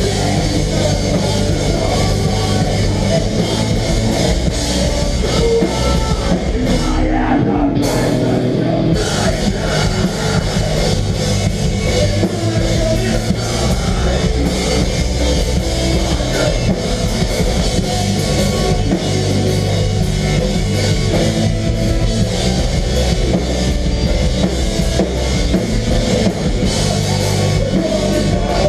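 Melodic hardcore band playing live with distorted guitars, bass and a drum kit, an instrumental passage without vocals. The cymbals drop out briefly about seven seconds in, then the full band carries on.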